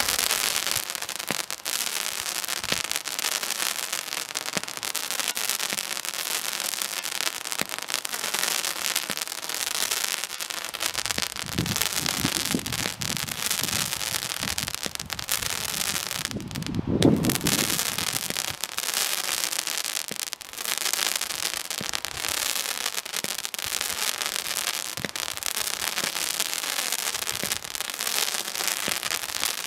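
Zeus Fireworks Thor's Ti Crackle, a 19-shot titanium crackle cake, firing: a continuous dense crackling throughout, with a few low thumps, the loudest about 17 seconds in.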